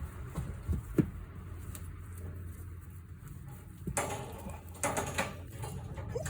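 A few sharp knocks, then two short bursts of rattling clatter about four and five seconds in, over a low rumble.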